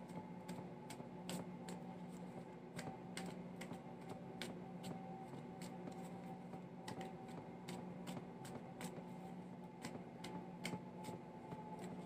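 A deck of tarot cards being shuffled hand over hand, a run of soft, irregular clicks, about two or three a second, as the cards slip and tap between the hands. A faint steady hum sits underneath.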